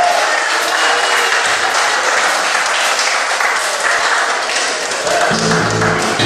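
Applause from a small audience in a hall, many hands clapping. About five seconds in, low sustained notes from an amplified instrument join in.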